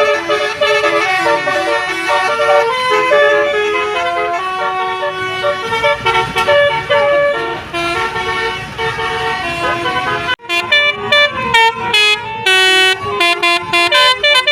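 Indonesian 'telolet' multi-tone bus horn playing a tune of changing notes, several tones sounding together. A little over ten seconds in it breaks off suddenly, then goes on in short, choppy blasts in quick succession.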